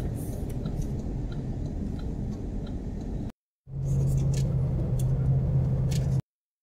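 Steady road and engine noise of a car driving, heard from inside the cabin, with a low hum and faint regular ticking. The sound drops out briefly a little past halfway and cuts off shortly before the end.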